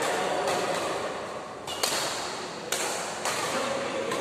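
Badminton rackets striking the shuttlecock in a fast doubles rally: about five sharp cracks a half to one second apart, each ringing briefly in the large hall.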